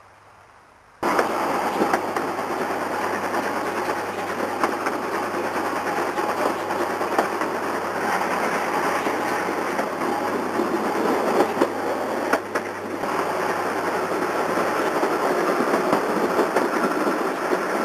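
750 mm narrow-gauge steam train running, heard from an open carriage window: a loud, dense rush of locomotive exhaust and wheels on the rails, starting abruptly about a second in.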